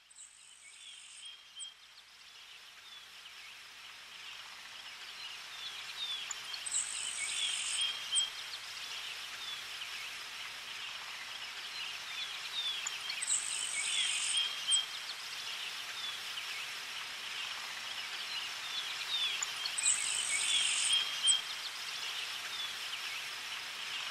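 Nature ambience of chirping insects and birds, fading in over the first few seconds, with a high trill about a second long that repeats four times, about every six and a half seconds.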